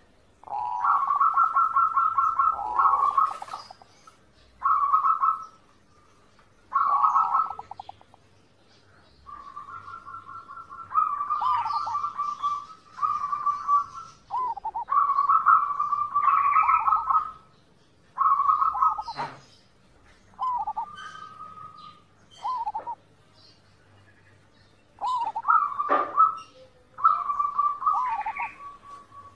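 Zebra dove (perkutut) cooing: repeated phrases of quick, pulsed staccato notes, some ending in a falling note, with short pauses between them.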